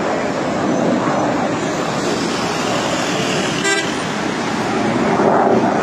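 Steady road-traffic noise from a busy multi-lane highway, with vehicle horns tooting.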